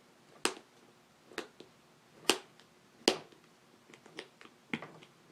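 Staples being pried out of a motorcycle seat pan: four sharp snapping clicks about a second apart, then a few fainter clicks near the end.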